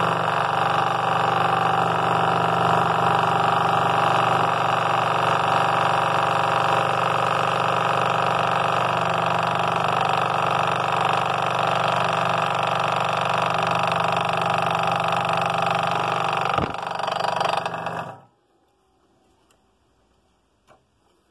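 Scroll saw running with a non-reverse tooth blade, cutting through a thick block of cedar: a steady machine hum that cuts off suddenly near the end.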